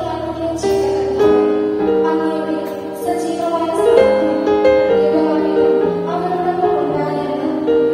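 A choir singing a slow hymn with instrumental accompaniment, in long held notes.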